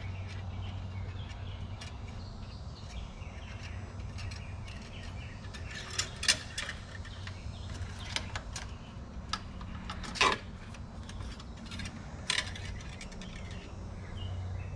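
Engine oil dipstick being slid into and drawn out of its metal tube and wiped with a shop towel: a few sharp metal clicks and taps, the loudest about six and ten seconds in, over a steady low hum.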